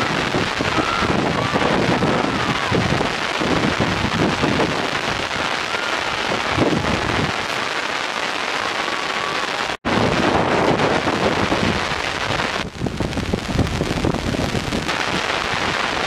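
Wind buffeting an outdoor camera microphone, a steady rushing noise with a shifting low rumble, and a few faint distant shouts from the players. The sound drops out for an instant a little past the middle.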